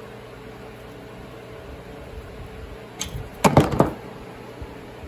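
Quiet shop room tone, then a short burst of clattering knocks about three seconds in as the Powerglide transmission and its parts are handled.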